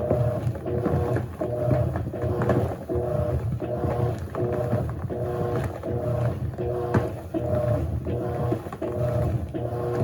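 Electrolux LAC16 top-loading washing machine agitating a load in the wash: the motor whines and churns in short alternating strokes, about one and a half a second, with water sloshing.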